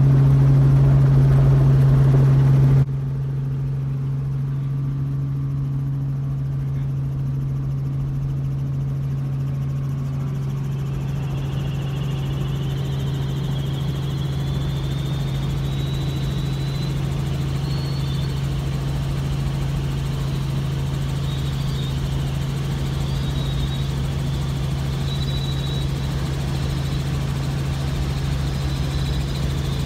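Robinson R44 helicopter heard from inside the cabin, its six-cylinder Lycoming piston engine and rotors running steadily with a strong low hum. About three seconds in the level drops abruptly and the sound carries on quieter; from about eleven seconds a faint high wavering whine is heard along with it.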